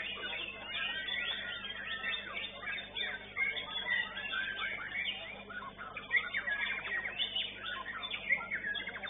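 White-rumped shama (murai batu) singing a fast, varied run of short whistled and chirped notes with barely a pause.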